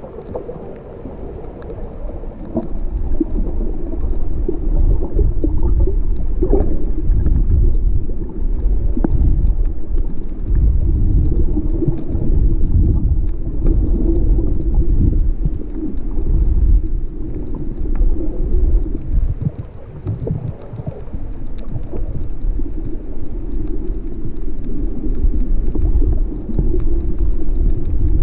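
Underwater water noise picked up by a submerged camera: a loud, uneven rumble of water moving around the microphone, with a faint steady crackle of fine ticks high above it.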